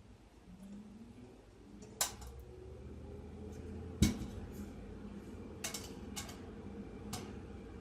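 Metal PC case and drive-bay parts being handled during disassembly: a few sharp metallic clicks and clanks, the loudest, with a dull knock, about four seconds in.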